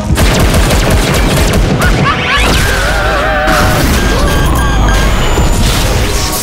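Cartoon action soundtrack: loud music with booming impacts and crashes, and shrill wavering cartoon yells in the middle.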